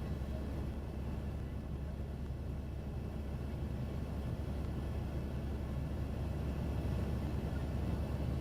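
Helicopter in flight heard from inside the cabin: a steady low drone of rotor and engine.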